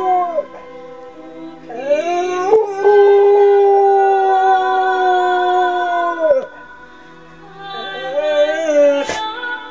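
English springer spaniel howling along to recorded singing: the tail of one howl drops away just after the start, then a long howl rises in pitch, holds steady for about four seconds and falls off. Near the end a softer wavering tone and a sharp click.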